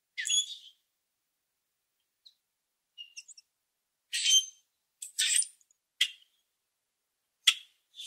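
Common grackle giving a string of short, high-pitched squeaky chirps, about seven spread irregularly over several seconds, the loudest about four seconds in.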